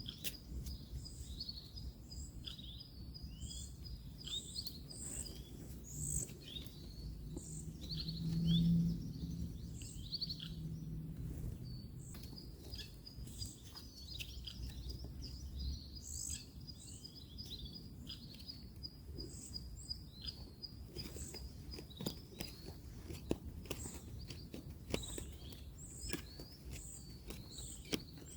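Several birds chirping and calling in woodland, one with a fast high trill through much of it, over a low rumble of distant road traffic that swells briefly about a third of the way in. Small clicks are scattered throughout.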